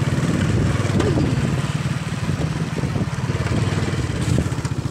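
Motorcycle engine running steadily while being ridden, with a fast low pulse.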